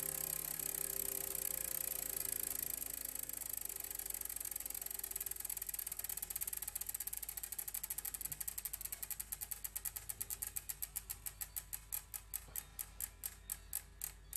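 Clockwork ratchet mechanism ticking, the clicks starting rapid and slowing steadily to about three a second before stopping: a wind-up mechanism running down. The tail of the preceding music fades out in the first couple of seconds.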